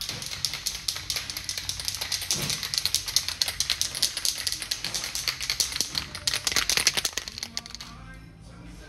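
Ratchet wrench clicking rapidly and unevenly as it turns a nut. The clicking stops near the end.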